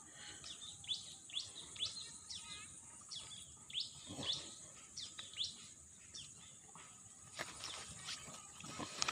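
A bird calling in a quick string of short, downward-sweeping chirps, about two a second, that stop about six seconds in, over a steady high-pitched whine in the background.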